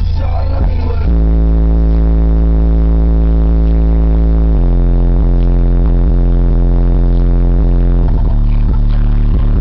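Bass-heavy music played loud through two Treo 10-inch subwoofers driven by a Zapco 1000-watt amplifier, heard inside the truck cab. Long held deep bass notes change pitch about one, four and a half and eight seconds in.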